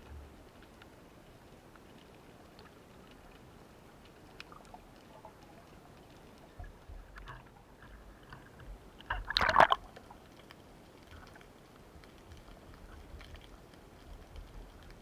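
Water sloshing and gurgling, with faint scattered clicks and a short loud gurgling burst about nine and a half seconds in.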